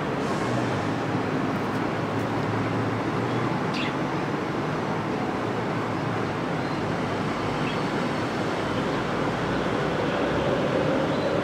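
Steady outdoor background noise, an even rushing hum with no clear single source, and one brief faint chirp about four seconds in.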